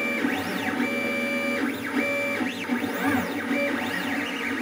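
LulzBot TAZ 3D printer printing a part: its stepper motors whine in steady tones during straight moves that start and stop about once a second, with the pitch sweeping up and down as the print head speeds up and slows.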